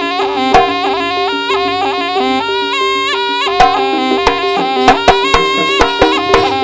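Live East Javanese jaranan music: a slompret (double-reed shawm) playing a winding, ornamented melody over steady low held tones. Sharp drum strokes come in more often in the second half.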